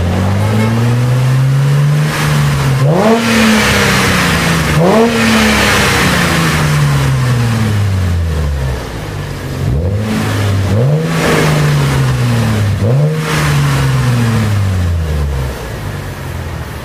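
Mercedes-Benz R171 SLK350's 3.5-litre V6 through an aftermarket HE'ART exhaust, revved several times: each blip jumps quickly up in pitch and sinks slowly back to a low idle-like drone.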